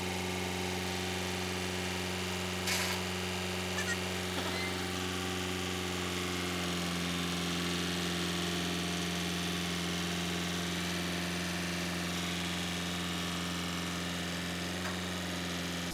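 A steady low hum of several fixed tones under a faint hiss, with two faint clicks about three and four seconds in.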